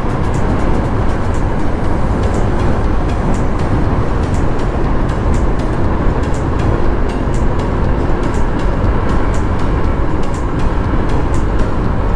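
Steady wind rush and road noise of a moving motorcycle, heard through a lavalier mic inside the rider's helmet; loud and dense, heaviest at low pitch.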